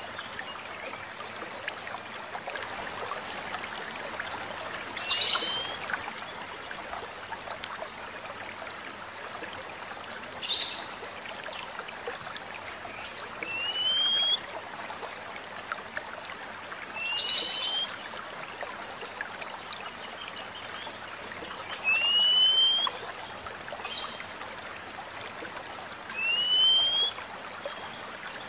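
Oriental magpie-robin (kacer) calling: a short, upward-sliding whistle repeated five times, with a few sharp, harsh notes among them. The steady rush of a running stream continues underneath.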